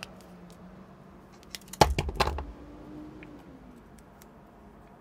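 Sharp clicks and knocks of hookup wire and small side cutters being handled at a workbench, with a loud cluster of them about two seconds in and faint ticks around it.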